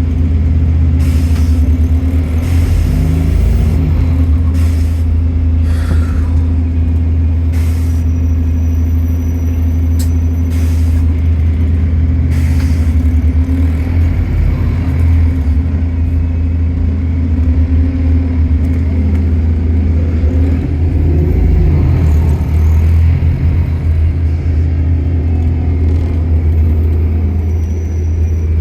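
Inside a London double-decker bus in motion: the engine and drivetrain drone steadily, its pitch rising and falling as the bus speeds up and slows down, with scattered knocks and rattles from the body.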